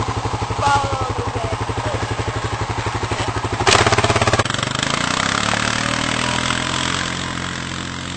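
ATV quad-bike engine running with a fast pulsing chug. About four seconds in comes a brief loud burst of noise, then a smoother engine note that drops in pitch and fades as the quad draws away.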